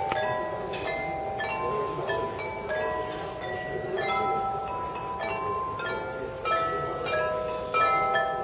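Glockenspiel of Meissen porcelain bells playing a melody. Struck bell notes ring on and overlap, with new notes several times a second.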